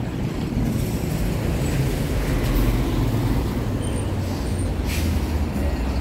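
Heavy road traffic on a main road: lorries and cars passing, a steady low rumble of engines and tyres, with a brief hiss about five seconds in.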